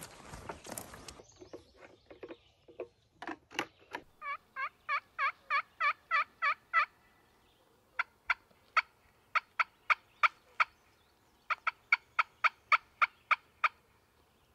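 Runs of turkey yelps: evenly spaced notes at about four a second, in several bursts with short pauses between them. The first second holds footsteps rustling through dry leaves.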